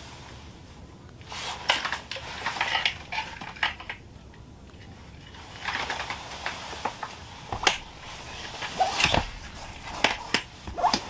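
Plastic ice skimmer knocking and scraping against the ice in an ice-fishing hole, with sharp clicks and clinks of ice chips coming in two spells.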